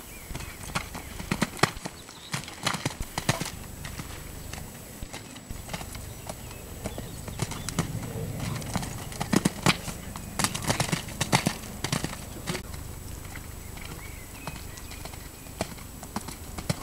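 Horse's hoofbeats cantering on wet sand arena footing, an uneven series of dull thuds, with the loudest hoof strikes coming in a cluster around a jump about halfway through.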